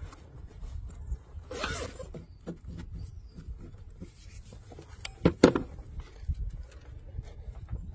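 Hands handling a portable lithium jump starter and its soft zippered case, a brief rustle of the case followed by scattered small clicks. A little past five seconds in come two sharp clicks, the loudest sounds, as the jump starter's cable clamps are fitted onto the battery.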